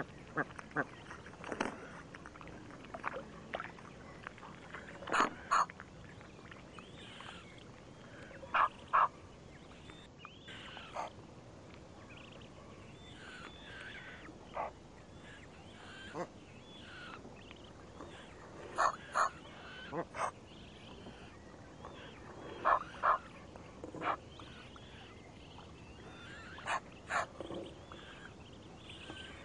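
Egyptian geese and their goslings calling close by: short calls, often in quick pairs, every few seconds.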